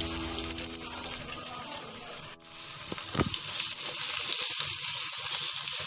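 Sliced onions, tomatoes and chillies sizzling as they fry in a clay pot, an even hiss, with a sharp scrape of the stirring spoon about three seconds in. Faint background music runs under the first two seconds and cuts off suddenly.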